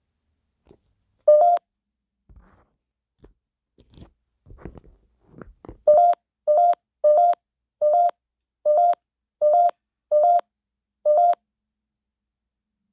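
Alarm beeps from the GhostTube phone app: one short electronic beep, some rustling as the phone is handled, then a run of about eight evenly spaced short beeps, roughly one and a half a second, that stops suddenly. The beeps come with a spike on the app's magnet-icon meter and its warning triangle, the app's alert for a reading.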